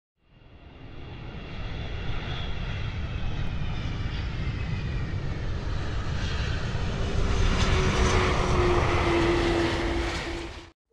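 Jet airliner's engines, fading in and growing louder over a low rumble, with a whine that falls in pitch over the first few seconds; the sound cuts off abruptly near the end.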